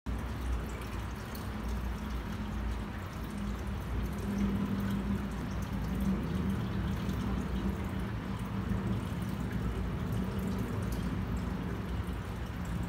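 Aquarium filter running: water trickling and dripping steadily, over a constant low hum.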